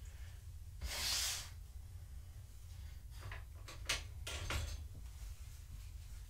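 Handling noise as things are moved about: a short swish about a second in, then a quick run of knocks and clicks.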